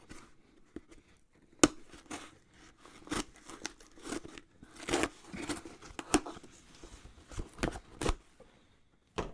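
Shipping package being opened by hand: irregular cutting, tearing and rustling, with a few sharp clicks, the sharpest about a second and a half in.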